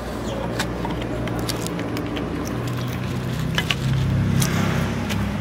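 Steady low hum of an engine running, swelling a little about four seconds in, with scattered small clicks and taps over it.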